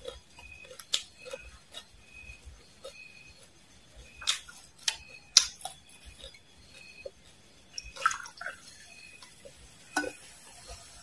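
Close-miked chewing of crisp fried insects (silkworm pupae and mole crickets): scattered sharp crunches, the loudest a cluster about four to five and a half seconds in and more near eight and ten seconds.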